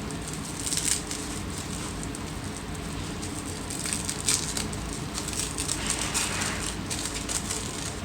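Crinkling and rustling of plant packaging being handled and pulled open, in many short crackly bursts, busiest about a second in and again through the second half, over a steady low hum.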